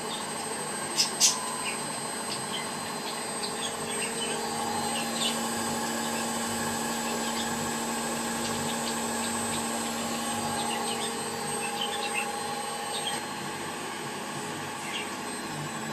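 A machine running steadily, with a hum and a thin high whine. Scattered small clicks and squeaks sound over it, and two sharp clicks come about a second in.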